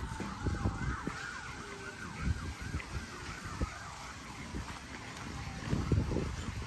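Emergency vehicle siren sounding in the background, with rapid yelping sweeps and a long wail that slowly falls in pitch. Low thumps on the microphone, strongest near the end.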